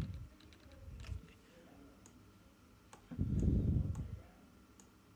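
Scattered light computer mouse clicks while shape anchor points are dragged. About three seconds in there is a low, muffled rumble lasting nearly a second, the loudest sound here.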